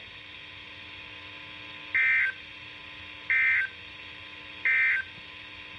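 Three short, buzzy bursts of digital data tones about a second apart, from a NOAA Weather Radio broadcast on a weather radio receiver. They are the EAS/SAME end-of-message codes that close the required weekly test.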